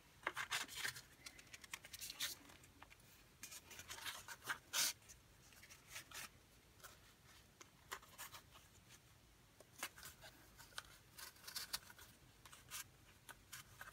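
Faint paper handling: a folded patterned-paper envelope book and baker's twine being picked up, turned and handled on a tabletop, a scattered run of short rustles, scrapes and taps.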